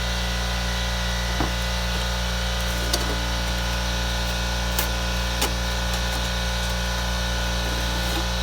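A steady mechanical hum of several constant tones, with a few light clicks and knocks scattered through it.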